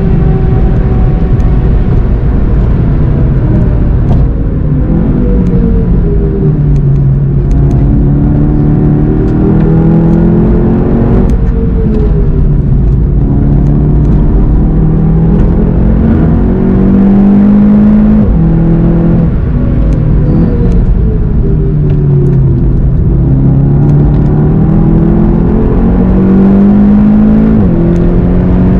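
A car's engine heard from inside the cabin at speed: the engine note falls as the car slows for a slow corner, then climbs again under acceleration, with sudden pitch drops at the gear changes.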